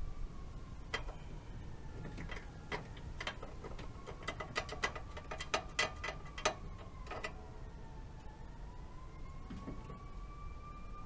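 A run of about a dozen sharp, irregular metallic clicks and taps from hand-tool work, bunched between about one and seven seconds in. Behind them a siren wails faintly, its pitch slowly dipping and rising.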